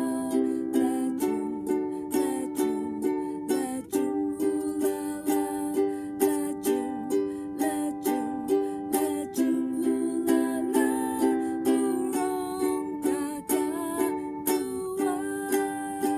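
Ukulele strummed in a waltz rhythm, one-two-three, moving between G, C and D major chords.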